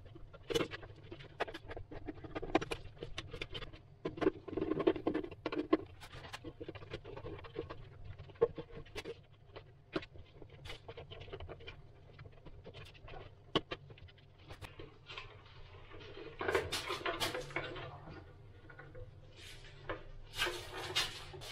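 Hands fiddling with a small plastic wall lamp and its cables: a constant run of small clicks, scrapes and rustles of plastic and wire. The handling gets busier and louder about three-quarters of the way through and again near the end.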